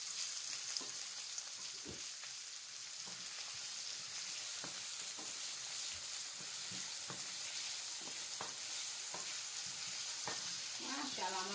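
Sliced onions sizzling in hot oil in a pan, stirred with a wooden spoon that knocks and scrapes against the pan at irregular moments, about once or twice a second.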